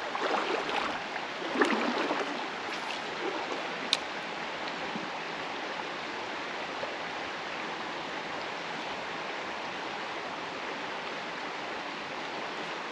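Creek water flowing and rippling steadily, with a few louder splashy or rustling sounds in the first couple of seconds and a single sharp click about four seconds in.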